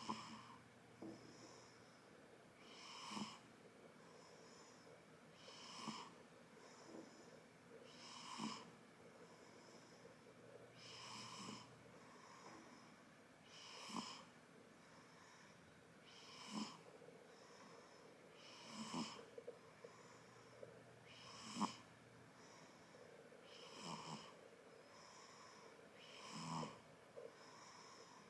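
One-month-old newborn baby snoring in her sleep: a hearty snore on each breath, about every two and a half seconds, with softer breathing between.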